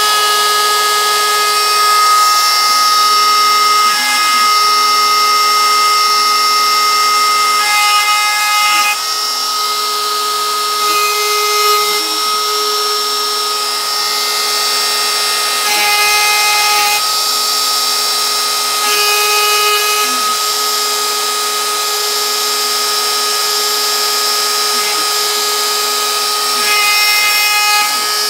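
Carbide 3D router spindle on a Shapeoko 3 XL CNC machine running at speed with a steady high whine while its 90-degree V-bit engraves letters into pine. A lower tone starts and stops every second or so as the machine moves the bit between cuts.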